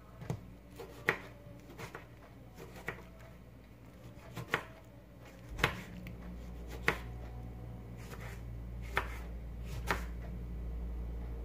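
Kitchen knife slicing a tomato on a plastic cutting board: sharp, irregular taps about once a second as the blade strikes the board. A low steady hum comes on about halfway through.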